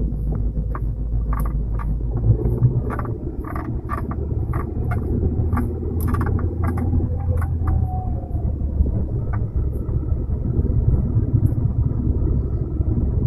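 Short squeaks from the rear luggage area of an E-EK9 Honda Civic Type R as the body twists from side to side, over the low rumble of the car. About two to three squeaks a second for the first seven seconds, then only a few scattered ones. It is a body-twist squeak that also comes on corners and bumps.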